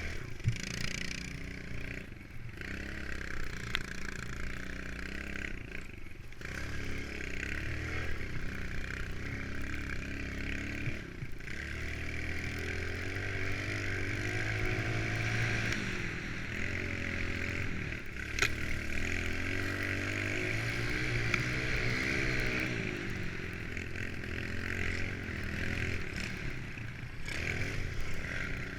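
Small single-cylinder four-stroke pit bike engines (Kawasaki KLX110s and a Honda CRF70) revving up and down through the gears as the bikes ride around a track. There is a sharp knock about eighteen seconds in.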